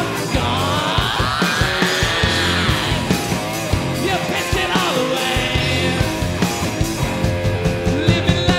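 Live rock band playing loud: electric bass, electric guitar and a drum kit with crashing cymbals, with gliding, bending notes in the middle range.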